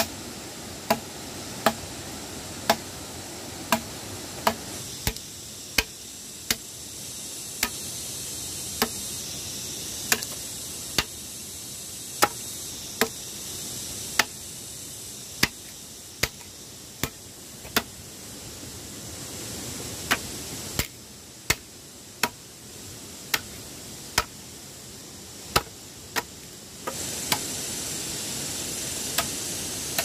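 A hand tool striking wood over and over: sharp single blows, roughly one a second and unevenly spaced, over a steady background hiss that grows louder near the end.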